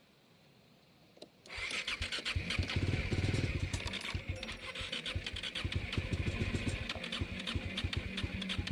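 Motorcycle engine started by touching the starter terminals together instead of using the self-start button, on a battery weakened by a sub-zero night: a click, then about a second and a half in the engine catches at once and runs, picking up for a moment before settling to a steady idle.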